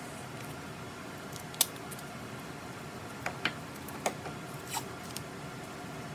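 A few light, sharp clicks and taps of small hard objects being handled, the loudest about a second and a half in, over a steady background hum.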